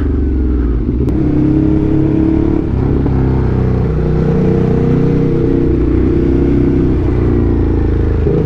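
Motorcycle engine running while riding, its pitch rising and falling with the throttle, over steady wind and road rush.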